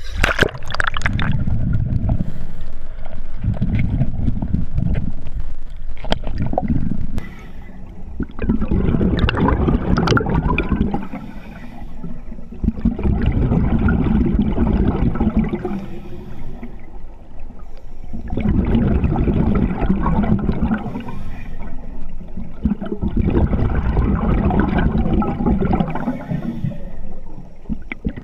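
Scuba diver's exhaled air bubbling out of the regulator, heard underwater: a loud gurgling rush of bubbles every four to five seconds, each lasting two to four seconds, with quieter gaps for the in-breaths.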